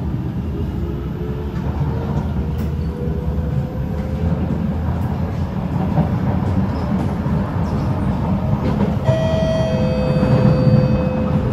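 Kawasaki C751B metro train running, heard from inside the car: a steady low rumble of wheels and running gear, with a faint motor whine rising in pitch over the first few seconds as the train gathers speed. About nine seconds in, a steady higher whine with several tones joins the rumble.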